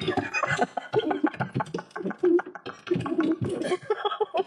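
A voice making rapid, choppy vocal sounds, many short syllables a second.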